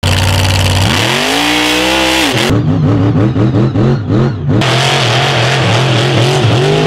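A 1520 hp King Sling mega truck engine revving hard. The pitch climbs about a second in, then rises and falls rapidly several times a second before holding high revs with smaller swings.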